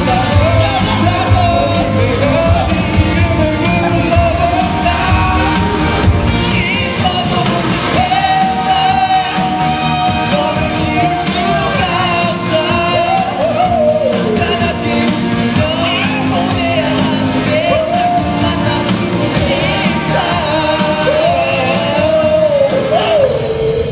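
A pop song with a lead voice singing a bending melody over full backing music. The deep bass drops out about a third of the way through, and the voice holds one long note near the end.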